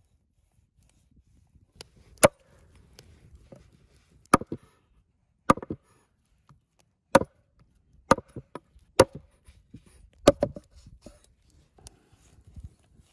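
Heavy cleaver chopping through a rack of lamb ribs into a thick wooden chopping block. About seven sharp chops come a second or so apart, with lighter knocks in between.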